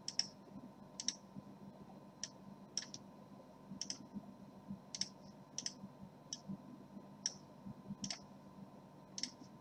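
Computer mouse clicking: over a dozen short single clicks at irregular intervals, as text is selected and a font list is opened and scrolled, over a faint steady hum.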